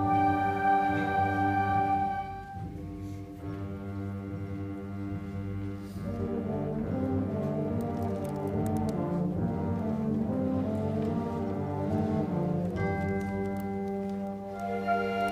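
A school concert band of winds and brass playing slow, held chords. The sound drops softer after about two seconds, lines move under the held notes through the middle, and a new full chord enters near the end.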